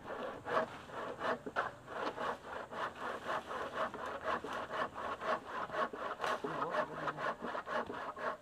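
Metal garden rake scraping through dry leaves and soil in quick, regular strokes, about three a second.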